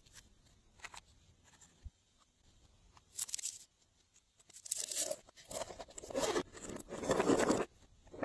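Glossy slime being handled: a few faint clicks, a short sticky, tearing noise about three seconds in, then a longer run of squishing and tearing sounds over the last three seconds.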